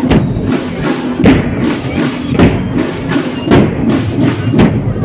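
Marching drum corps playing: heavy bass drum strokes about once a second over busier drumming, with a held note sounding underneath.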